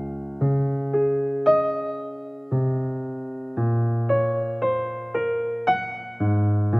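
Background piano music: slow chords, each struck and left to fade, a new one about every second.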